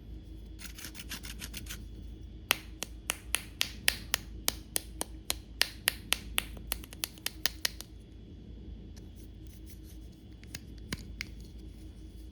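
A rapid series of sharp clicks, about four a second for some five seconds, from small plastic parts being handled or snapped. Fainter clicks come before and after it.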